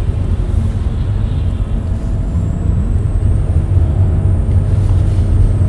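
Car driving, heard from inside the cabin: a steady low rumble of engine and tyre road noise.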